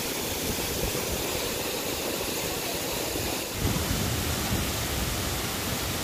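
Waterfall pouring into a rocky pool: a steady hiss of falling water, which grows fuller and deeper a little over halfway through.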